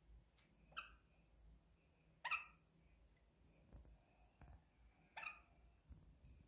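Lineolated parakeets chirping: three short, sharp calls a few seconds apart, the second one the loudest.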